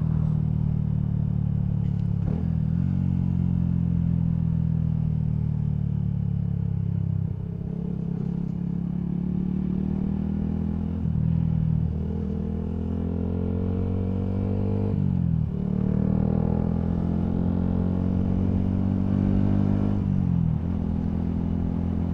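Single-cylinder Yamaha MT-125 motorcycle engine with an aftermarket Scorpion full exhaust, under way. Its pitch climbs as it pulls and drops at each gear change, about five times.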